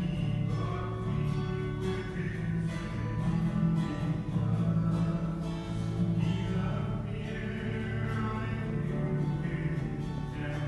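A man singing a worship song to his own strummed acoustic guitar through a microphone, the voice holding long notes over the steady strumming.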